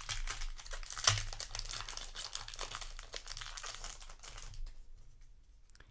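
Foil wrapper of a Magic: The Gathering set booster pack crinkling as it is torn open by hand, loudest about a second in and dying away near the end.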